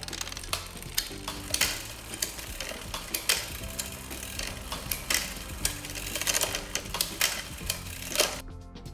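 Bicycle chain running over a direct-mount double chainring as the crank is spun by hand, with irregular clicking and ticking from the chain and drivetrain; it stops near the end. Background music plays under it.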